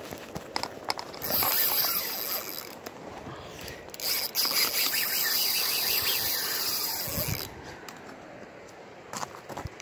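Spinning reel's drag buzzing as a hooked chinook salmon pulls line off against it, in two runs: a short one about a second in and a longer one of about three seconds from about four seconds in.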